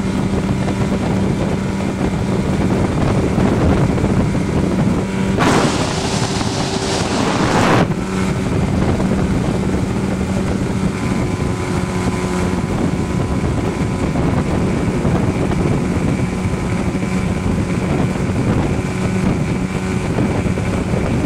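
A 50 hp Johnson two-stroke outboard running steadily at high throttle, a boat planing at speed, with wind and spray rushing past the microphone. About five seconds in, a loud rush of noise covers the engine for about two seconds.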